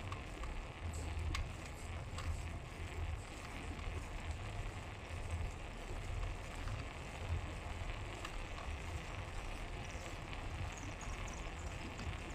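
Wind rumbling on the microphone of a moving bicycle, over steady road noise, with a few faint clicks.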